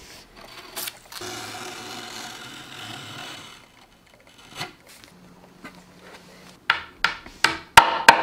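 A blade scrapes along a wooden panel edge for a couple of seconds, trimming overhanging painter's tape flush. Near the end, a small hammer taps a wooden frame about five times in quick succession, sharp and louder.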